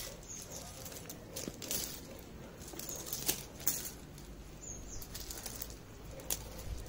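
A cast net rustling on gravel, with small fish caught and struggling in the mesh: about eight brief, scattered rustling flaps.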